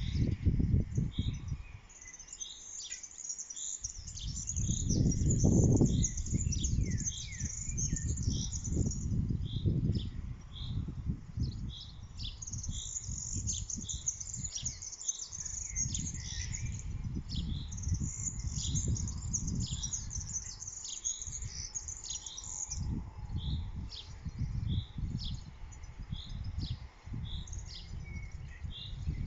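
Small songbirds chirping: a short note repeated about twice a second, with stretches of higher twittering. Under the birdsong runs an uneven low rumble.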